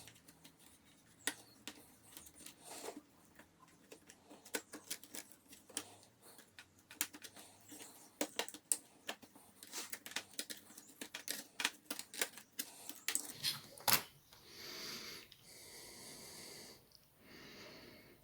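Small, irregular clicks and taps of tools and plastic and metal laptop parts being handled during disassembly, ending in a sharper click about fourteen seconds in. After it come a few soft hissing swells.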